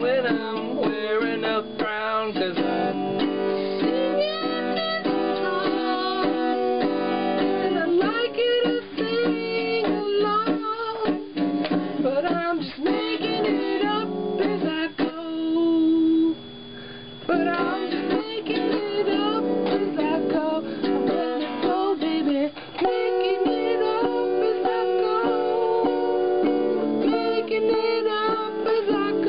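A man singing while strumming chords on a small acoustic guitar, played by someone who says he does not play guitar. A short quieter break about sixteen seconds in.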